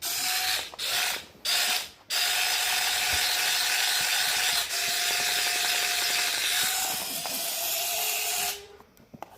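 Small electric motors and plastic gears of a toy wall-climbing RC car whirring, in three short bursts and then running steadily for about six seconds before stopping.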